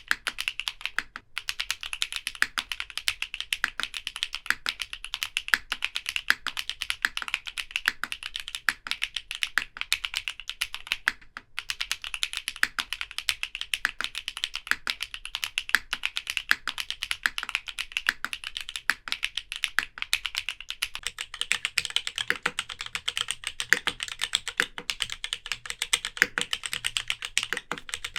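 Continuous fast typing on a Hippo TKL custom mechanical keyboard, a dense run of keystroke clicks with two short pauses, about a second in and about eleven seconds in.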